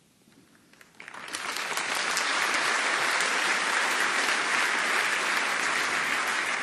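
Audience applauding: a few scattered claps at first, then the applause swells about a second in and holds steady.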